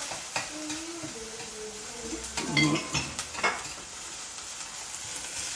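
Onions frying in olive oil in a pan with a steady sizzle, while a utensil stirs them and clinks against the pan several times.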